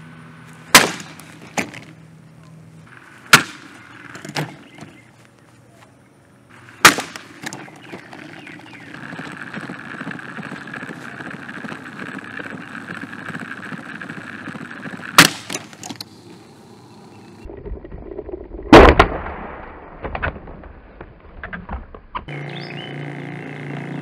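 A Holmes Breeze Blaster plastic table fan being destroyed: a string of sharp cracks, about seven spread over the stretch, the loudest about a second in, about seven seconds in, about fifteen seconds in and about nineteen seconds in. Between the cracks there is a steadier noise, and a low rumble follows the last big crack.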